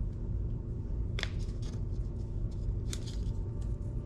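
Small packaging items and accessories being handled and rummaged through, giving two short, sharp rustling clicks, one about a second in and one about three seconds in, with fainter ticks between them. A steady low hum runs underneath.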